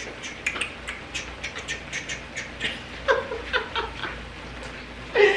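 Mushrooms and vegetables frying in oil in a pan, with irregular crackles and pops over a light sizzle.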